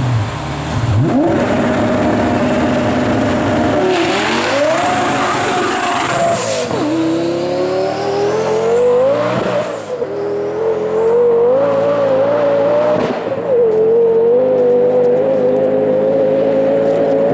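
Tuned Lamborghini Gallardo launching hard from a standing start about a second in and accelerating flat out. The engine note climbs and drops back at each of several upshifts.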